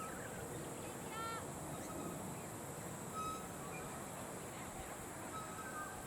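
Birds calling at a cricket ground: short whistled notes here and there, and one louder, richer call about a second in, over a steady outdoor background hiss.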